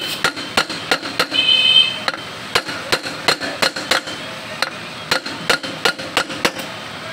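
Hand hammer striking the steel wheel hub of a three-wheeler to knock the wheel loose for a brake change: about twenty sharp metallic knocks with a short ring, in irregular runs of two to three a second.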